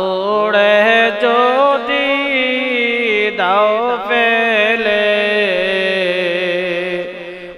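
A man singing a Bengali devotional zikir song into a microphone, drawing a word out into one long, wavering line, with a short break about three seconds in.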